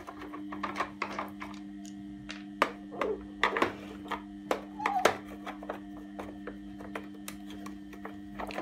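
Hand screwdriver working rusty screws out of a vacuum cleaner's plastic housing: scattered clicks, taps and scrapes of the tip, screws and plastic, with a short squeak about four and a half seconds in. A steady low hum runs underneath.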